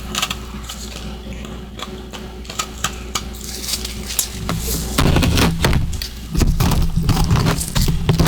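Close-miked chewing of humidifier-built freezer frost and ice chunks: light, crisp crackling at first, then loud, heavy crunching from about five seconds in.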